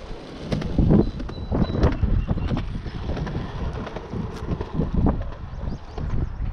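Footsteps of a person walking on a path, about two steps a second, with wind rumbling on the microphone.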